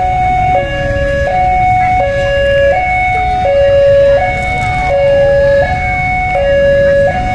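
Railway level-crossing warning alarm sounding a steady electronic two-tone pattern, switching between a low and a high note about every two-thirds of a second, over a low rumble, as a train approaches.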